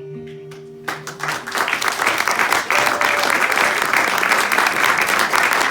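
The final strummed acoustic guitar chord rings out, and about a second in an audience bursts into applause. The clapping swells and keeps going, dense and loud.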